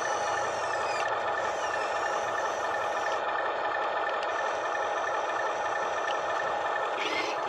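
Steady electric whine and hum of a radio-controlled toy excavator's small motors as it works its arm and bucket, holding an even pitch throughout.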